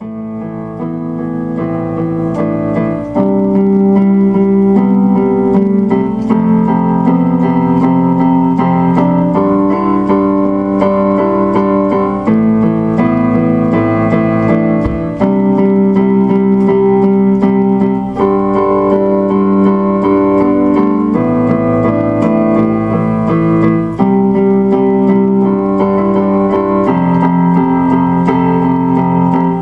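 Background music: slow keyboard chords that change about every three seconds, fading in at the start.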